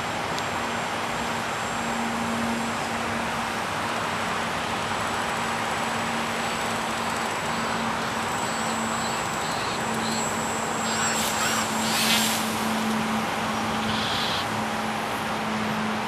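Steady road traffic noise, with a low steady hum underneath. About eleven to twelve seconds in a brief harsh, louder sound rises over it.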